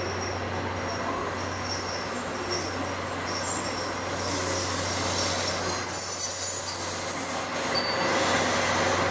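DD51 diesel-hydraulic locomotive hauling 14 series coaches rolling slowly into the platform, engines running and wheels squealing on the rails. It gets louder about halfway through as the locomotive draws close.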